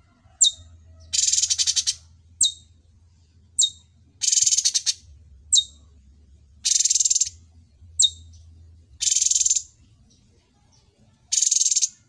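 Cucak cungkok (orange-bellied leafbird) singing: single sharp, high chip notes alternating with short buzzy, rapidly pulsing trills, each about two-thirds of a second long, five of each in a regular back-and-forth pattern.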